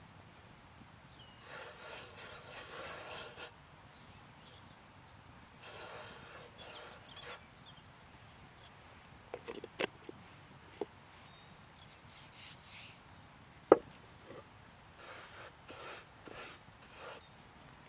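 A hand scattering flour onto a wooden board and rubbing it across the wood in several soft swishes. A few sharp wooden knocks come in between, the loudest about 14 seconds in.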